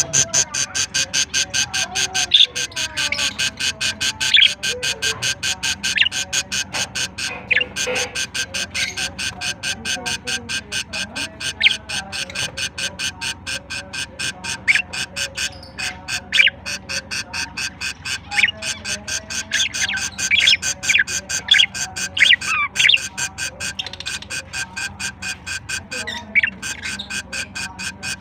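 Background music with a fast, steady beat, with budgies chirping over it.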